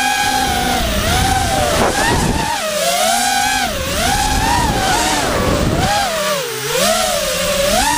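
Racing quadcopter's brushless motors and propellers whining, the pitch swinging up and down over and over with throttle as it weaves through the course, over low wind rumble on the onboard camera's microphone.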